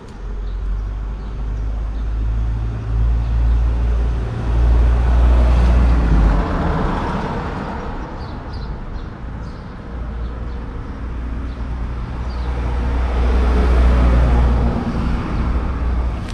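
Motor vehicle traffic close by: a low engine rumble with road noise that swells up twice, about a third of the way in and again near the end.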